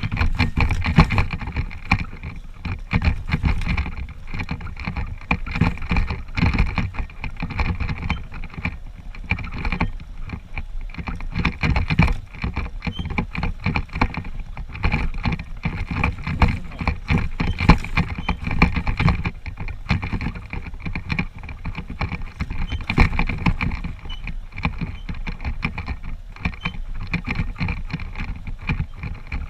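Honda CG125's single-cylinder four-stroke engine running as the motorcycle rides over rough ground, with many irregular knocks and rattles from the bumps.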